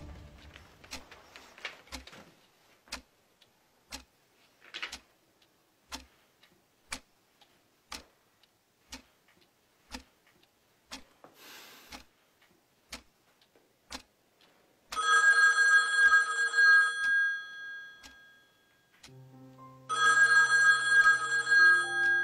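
A clock ticking about once a second, then a telephone ringing twice, each ring about two seconds long. A low held music note comes in under the second ring.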